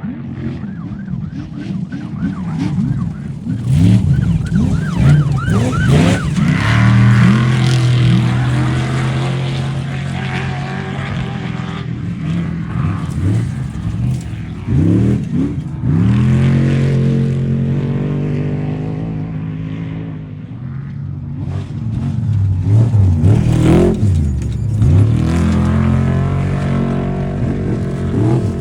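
Off-road race truck engines revving hard and running, with loud surges of rising and falling revs about four, fifteen and twenty-three seconds in and a steady engine note between them.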